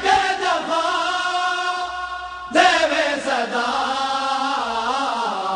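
A group of men chanting a Punjabi noha, a mourning lament, in long held lines: one phrase, then a second starting about halfway through.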